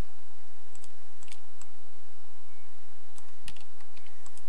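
Computer keyboard keys and mouse clicks: a handful of separate light clicks spread over the seconds, the sharpest about three and a half seconds in, over a low steady hum.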